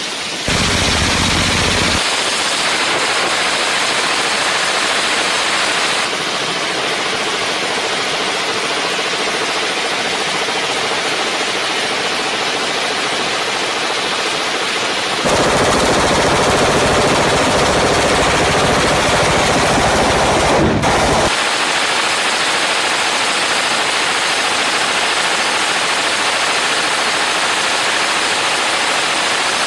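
Suppressed belt-fed light machine gun firing long, sustained automatic bursts, the shots running together into one continuous rattle. The suppressor is hot enough to glow. The sound jumps abruptly in loudness and tone several times.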